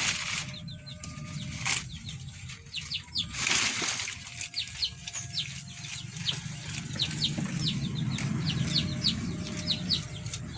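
Goat coughing: three short coughs in the first four seconds, the third the longest, while small birds chirp again and again in short falling notes.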